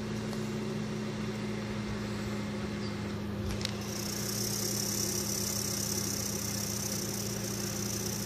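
Eastern diamondback rattlesnake shaking its rattle, a steady high buzz that sets in strongly after a short knock about three and a half seconds in. Under it runs a steady low mechanical hum.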